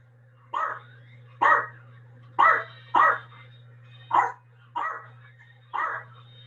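A dog barking: seven short, sharp barks spaced about half a second to a second apart, over a low steady hum.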